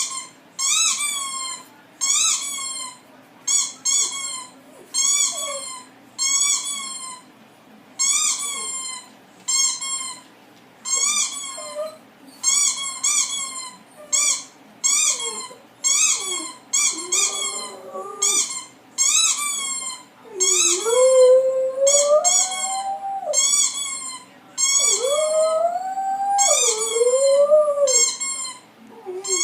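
Squeaky-toy sound effect squeaking over and over, about once a second. From about halfway through, a dog howls along in long, wavering howls that rise and fall beneath the squeaks.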